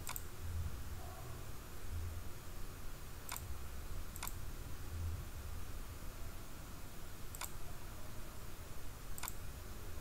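Computer mouse button clicking five times, sharp and short, each click placing a spline point: one right at the start, a pair about a second apart near the middle, and two more near the end, over a low steady background hum.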